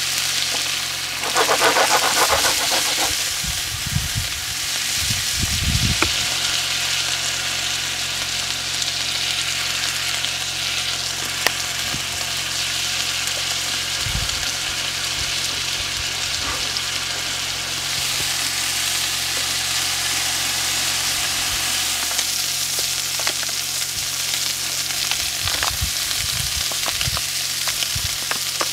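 Chicken frying in a pan on a portable camp stove: a steady sizzle, with a low even hum beneath and a few clicks and scrapes of a utensil stirring.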